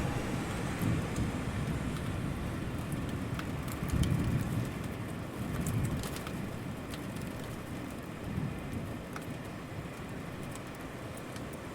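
Steady city rain falling, with scattered light drop ticks. A low rumble swells about four seconds in and again around six seconds.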